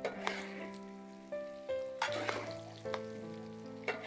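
Food sizzling as it fries, with a few sharp clicks, under light background music of changing single notes.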